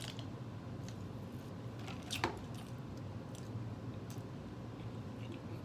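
Close-miked eating and drinking sounds: sipping a soft drink through a straw and chewing a burger, with small wet mouth clicks and one louder wet mouth sound about two seconds in, over a low steady hum.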